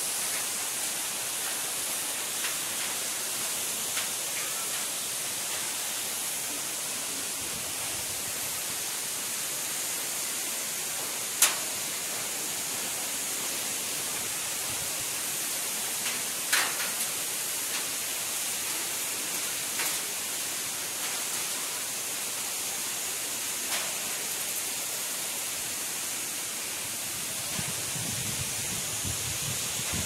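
Steady rushing hiss of a waterfall, with a few sharp clicks scattered through and a low rumble coming in near the end.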